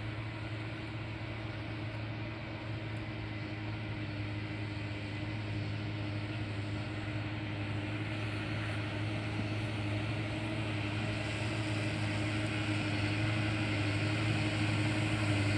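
Diesel farm tractor's engine running steadily under load while working the field, growing louder as the tractor comes closer.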